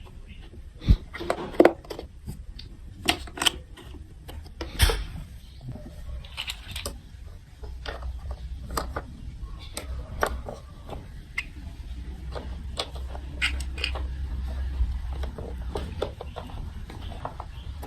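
Small plastic building-block and marble-run pieces being handled and set down, making irregular sharp clicks and taps, with a low steady rumble through the middle stretch.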